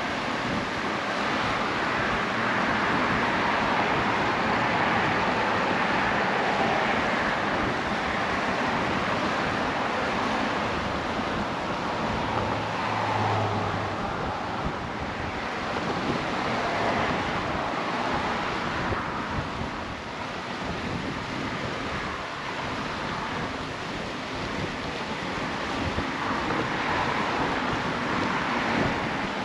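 Steady rushing of wind and choppy sea water, with wind buffeting the microphone.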